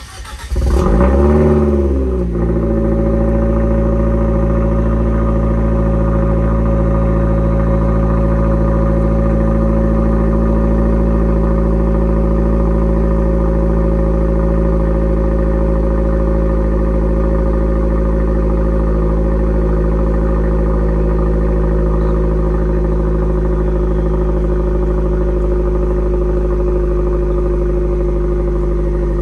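Fiat 124 Abarth's 1.4-litre turbocharged four-cylinder starting through a GWR 2.5-inch crosspipe and straight-through System One exhaust: the revs flare up and drop back within the first two seconds, then it settles into a steady, loud idle.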